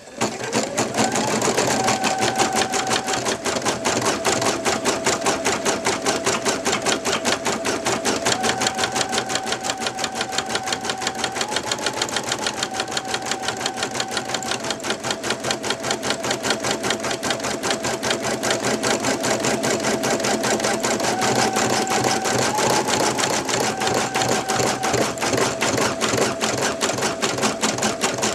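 Brother NV2600 computerized embroidery machine stitching a design: rapid, even needle strokes over a motor whine. The machine starts up at the beginning, its whine rising as it comes up to speed, and the pitch of the whine steps up and down several times as the stitching speed changes.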